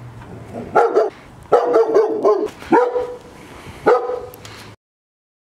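German Shepherd-type dog barking, about six loud barks in quick clusters, before the sound cuts off abruptly near the end.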